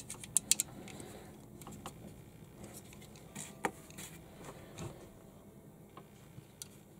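Small plastic Lego-compatible building bricks clicking and rattling as they are handled and pressed together, a scattering of sharp clicks with the loudest about half a second in and another about three and a half seconds in.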